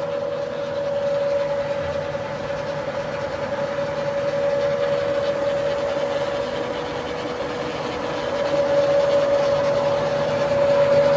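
Standard Modern engine lathe running under power, a steady gear whine over mechanical running noise that grows a little louder near the end.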